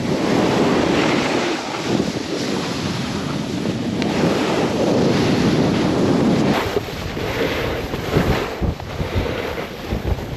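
Wind buffeting the microphone while snowboarding, over the hiss and scrape of a snowboard carving through slushy spring snow. It is a steady rush for about six seconds, then rougher and choppier.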